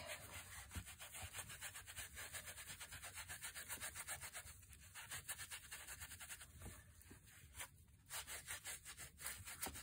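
A small piece of kitchen sponge scrubbing watery black acrylic paint over a cast-cement head, in faint, quick, repeated rubbing strokes.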